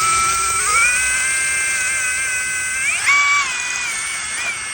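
Cordless impact driver spinning an abrasive brake hub cleaner pad against a glazed brake rotor to scuff off the glaze. The motor gives a steady high whine whose pitch steps up about a second in and dips under load about three seconds in before recovering.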